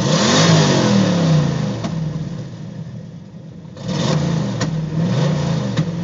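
Cammed Chevrolet LT1 V8 heard from inside the Camaro's cabin, revved twice with the pedal pushed to the floor: once at the start and again about four seconds in, each time rising and then falling back. It is misfiring and slow to rev, with poor throttle response, which the owner guessed came from a dirty mass air flow sensor.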